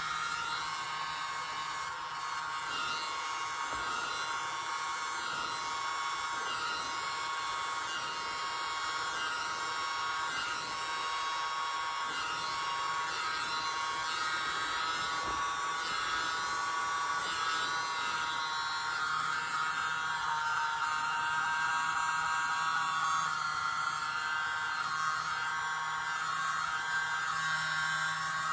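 Hair dryer running steadily with a motor whine and low hum, its airflow blowing wet acrylic paint outward across a canvas to open a bloom.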